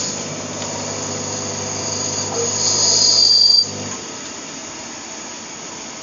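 CNC lathe cutting a workpiece: a high-pitched squeal from the tool in the cut over the steady hum of the spindle. The squeal grows louder and then cuts off about three and a half seconds in, the hum stops just after, and quieter machine running is left.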